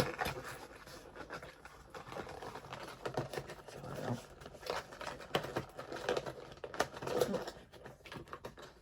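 Plastic casing and cardboard box being handled as a figure is packed back in: scattered clicks, taps and light crinkling.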